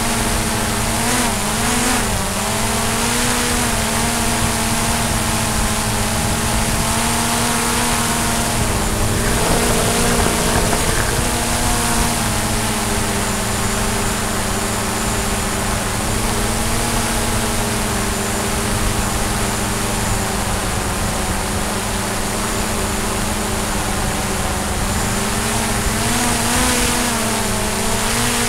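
DJI Mavic drone's motors and propellers whining steadily, with small dips and rises in pitch as the throttle changes.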